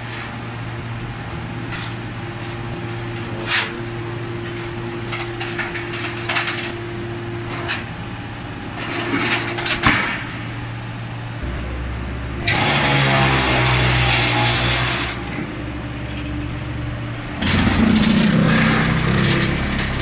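A 200-ton hydraulic scrap metal baler at work: its hydraulic power pack hums steadily, with sharp metal clanks as the lid closes on the scrap. Two louder, straining stretches of pump and ram noise, each about two seconds long, come in the second half as the scrap is pressed and the bale is pushed out.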